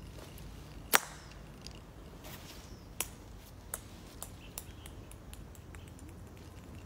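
Slingshot shot: one sharp snap of the rubber bands about a second in, followed by a few fainter clicks about two to three and a half seconds later.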